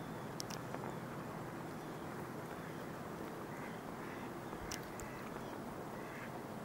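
Mallard ducks quacking faintly and now and then over a steady background hiss, with a few short sharp clicks.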